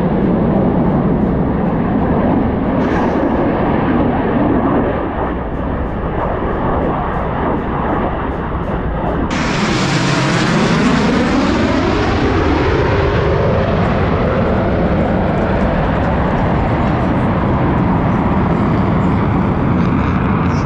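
Blue Angels F/A-18 Super Hornet jet noise: a steady roar, then a sudden loud high-pitched rush about nine seconds in as a jet passes close overhead. The roar then sweeps in pitch as the jet draws away.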